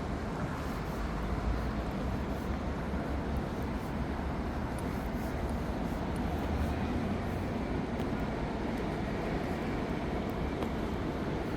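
Steady road traffic passing on a busy street: a continuous low rumble of engines and tyre noise.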